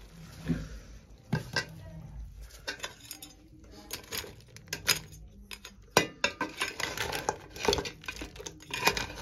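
A metal spoon stirring thick crab curry in a metal pot, clinking and scraping against the pot in irregular knocks, with one sharper knock about six seconds in.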